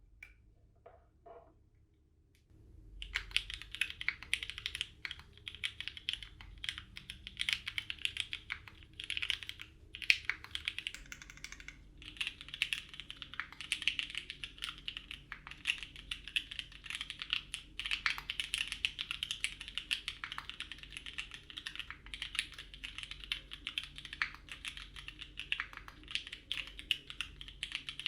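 Continuous typing on a custom 60% mechanical keyboard with lubed Cherry clear-top Nixie linear switches, a POM half plate, an o-ring mount and GMK keycaps. After a few faint clicks, the keystrokes begin about three seconds in and run on steadily, with a couple of brief pauses.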